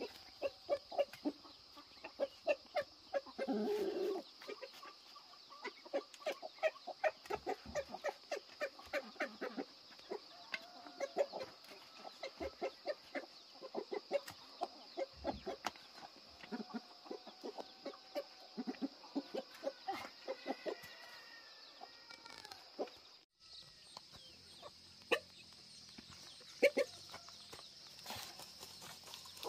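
Chickens clucking in a quick, repeated series of short calls, with a louder call about three and a half seconds in, over a steady high-pitched drone. The clucking thins out near the end.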